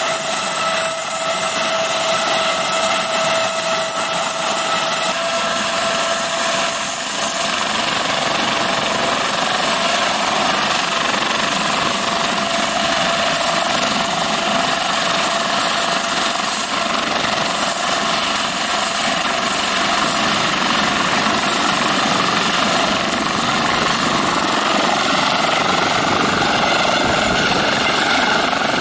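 Eurocopter AS365 N2 Dauphin helicopter running on the ground with its twin turboshaft engines up to speed and the rotors turning. There is a steady whine at first, and the noise grows fuller toward the end as the helicopter lifts off into a low hover.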